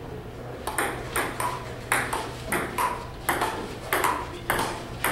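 Table tennis rally: the ball clicking back and forth off the rubber paddles and the table top, about two hits a second. Some bounces ring briefly.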